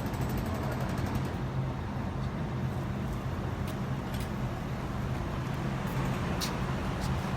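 Jackhammer hammering rapidly over a steady low engine hum, stopping about a second in; a few sharp clicks follow.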